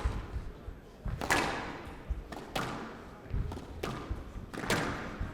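Squash ball being struck by rackets and hitting the court walls during a rally: about six sharp cracks, roughly a second apart, each ringing briefly.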